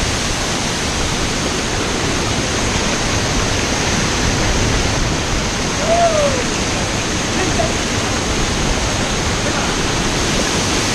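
A waterfall pouring: steady, loud rushing of falling water.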